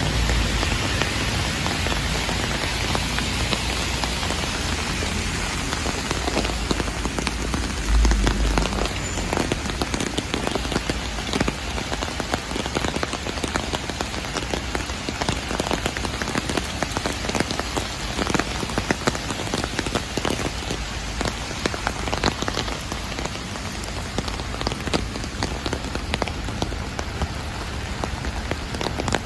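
Heavy rain falling on a wet street and pattering on an umbrella held overhead, a steady hiss full of fine drop ticks. A brief low rumble on the microphone about eight seconds in.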